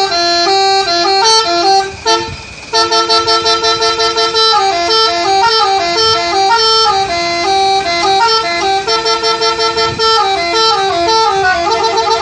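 A bus's telolet horn, a set of musical air horns, playing a loud rapid melody of stepping notes, with a brief dip about two seconds in and a fast stutter of repeated notes near the end.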